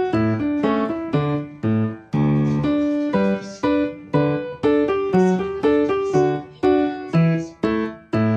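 Background piano music: single notes and chords struck at an even, unhurried pace over a lower bass line.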